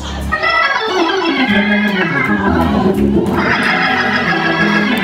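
Organ music: sustained chords over a bass line that steps from note to note.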